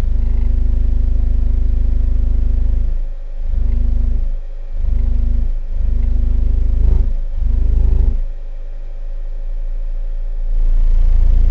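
Digital Designs 1508 SC 8-inch subwoofer in a wooden box playing deep bass notes from a song, its cone driven hard. Long held low notes are broken by short gaps, with a quieter stretch about eight seconds in before the bass comes back loud near the end.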